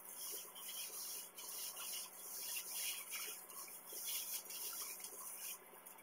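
Disposable plastic-gloved hands rubbing hair dye into short natural hair: a rustling hiss in uneven strokes that stops suddenly near the end.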